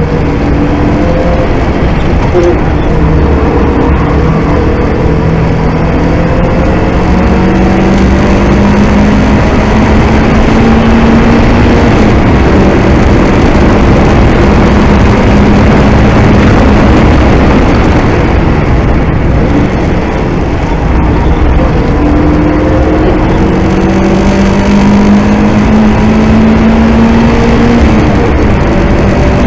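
VW Golf Mk2's turbocharged 2.0 16-valve four-cylinder engine driven hard on track. Its note climbs slowly through the revs twice over a constant rush of wind and road noise.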